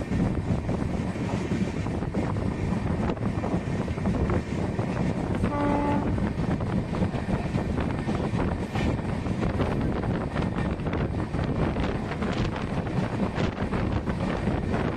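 Steady rumble and wind rush of an Indian Railways passenger train in motion, heard from the open doorway: wheels running on the rails with irregular clicks. About six seconds in, a train horn sounds briefly.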